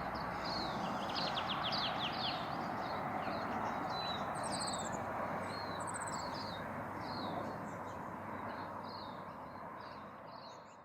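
Small birds chirping and twittering in many short repeated calls over a steady background hiss, the whole fading out near the end.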